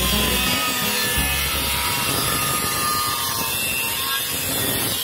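Angle grinder with a thin cut-off disc cutting through galvanized steel box section, a steady grinding cut with no pauses.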